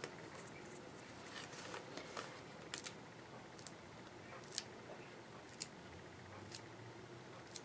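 Faint, sharp flicks about once a second as a finger is run across a paintbrush's wet bristles, splattering watered-down white paint.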